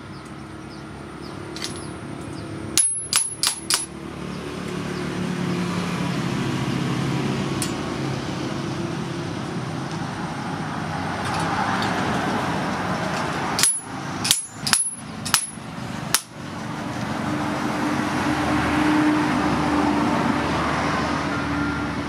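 Two quick runs of sharp, ringing metal taps, about five each: one about three seconds in and another around fourteen to sixteen seconds. Behind them is steady background noise with a low hum.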